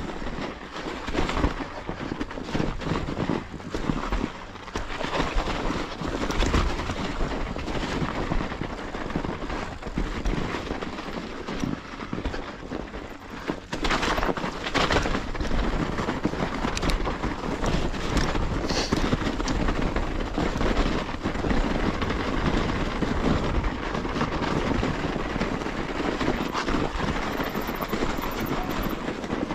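A mountain bike riding down a snowy trail: steady tyre noise through snow, with the bike rattling and knocking over bumps.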